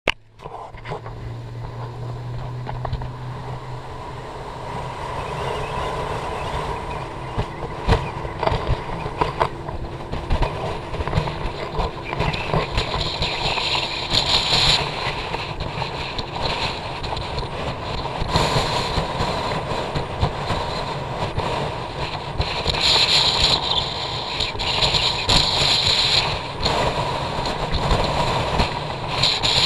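Small skiff underway: its motor drone mixed with wind buffeting the microphone and water rushing past the hull. The noise builds over the first few seconds, and several louder gusts of hiss come and go.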